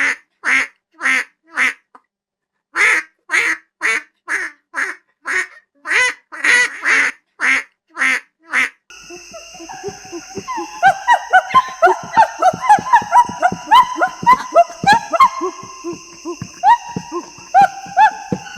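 A duck quacking in a quick series, about three quacks a second, for the first nine seconds. Then many small birds chirping together over a steady high-pitched whine.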